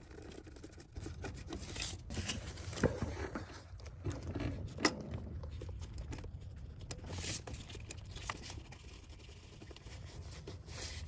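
Faint handling noises of a nitrile-gloved hand starting small 10 mm bolts by hand under an engine's intake plenum: glove rustle with scattered small metal clicks and scrapes.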